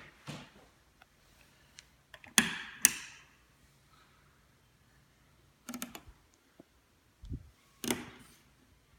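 A string of sharp clicks and knocks at irregular intervals, with a quick rattling cluster about six seconds in and a dull low thump just after, over a faint steady low hum.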